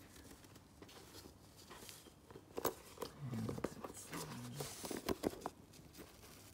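Hands handling a Louis Vuitton coated-canvas zip pouch with cow leather trim: soft rustling of the fabric and lining, with a few sharp clicks from the metal zipper and hardware, the loudest about halfway through and two more close together near the end.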